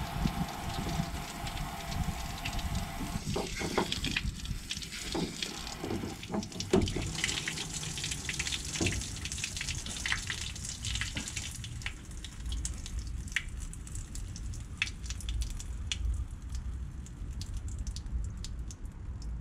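Water spraying and splashing from a disconnected water line under a caravan as the hot water system drains through it. The spray slackens to a thin trickle dripping near the end.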